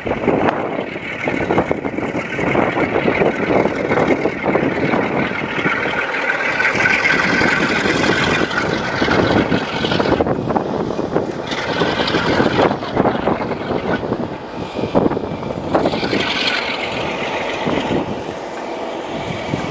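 Class 47 diesel locomotive hauling a train, heard from a coach window: its engine running under the steady clatter of wheels on the track. A high steady whine comes through in the middle.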